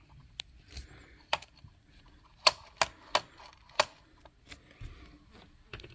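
Sharp clicks and taps of small parts being handled and fitted during hand assembly of an RC truck's steering: about half a dozen separate clicks, the loudest four coming close together in the middle.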